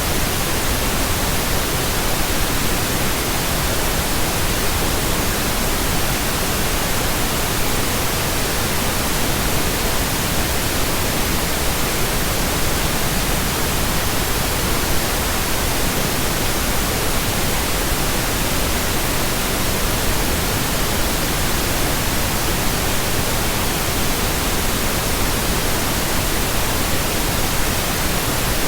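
Steady, unchanging pink noise: an even hiss spread across all pitches.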